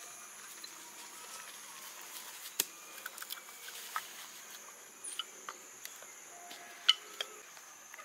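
Bamboo cups and a woven basket being handled on grass, giving a few sharp light knocks and clicks, the loudest a little past two and a half seconds and again near the end, over a steady high insect buzz.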